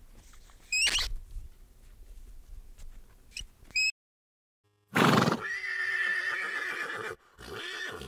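A horse whinnying: a loud outburst about five seconds in runs into a long call, followed by a shorter call near the end. Before it come a few short high squeaks and about a second of silence.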